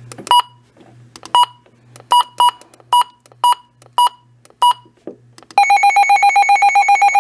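Handheld weather radio's button beeps, eight short beeps as its menu is stepped through. About five and a half seconds in, its alert tone starts: a loud, fast-pulsing beep, the radio's alert test.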